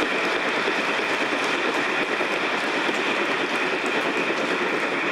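Congregation applauding steadily, a dense, even clapping of many hands.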